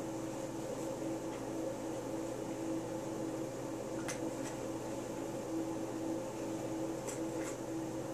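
Steady machine hum in a small room, with a tone that pulses slightly, and two pairs of faint light clicks about four and seven seconds in as a rifle part is wiped in a shop towel.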